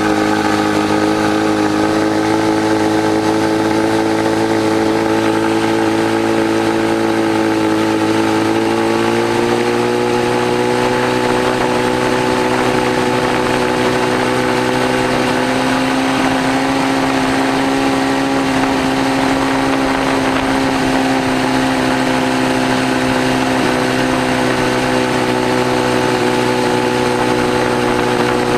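Privet-22 engine running at a steady speed, its pitch stepping up slightly about nine seconds in and then holding. The owner says it is 'sneezing', that is, sputtering and missing.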